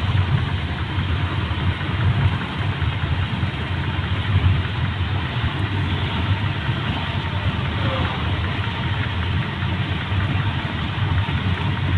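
Steady cabin noise of a car at motorway speed: a low engine and road rumble with tyre noise, unbroken.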